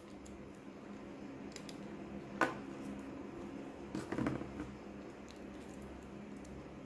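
Small handling sounds of a bare phone motherboard and its cable being worked against a battery-connector test box: one sharp click about two and a half seconds in and a cluster of small clicks and rustles about four seconds in, over a steady low hum.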